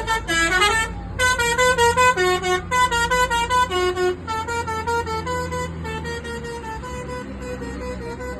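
Bus 'basuri' telolet horn, a multi-tone musical air horn, playing a quick tune of short stepping notes over a low engine rumble. It breaks off briefly about a second in, then plays on, growing quieter after about four seconds.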